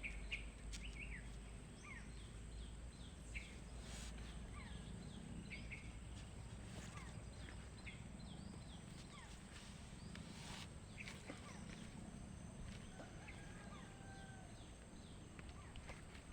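Outdoor ambience of many short, quick bird chirps over a steady high whine, with scattered sharp clicks and knocks.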